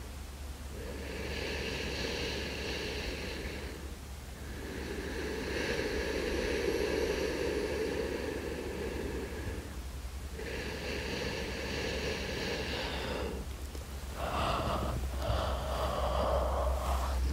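A person breathing slowly and deeply in sleep, close to the microphone: a series of long breaths lasting about three to five seconds each, with short pauses between them.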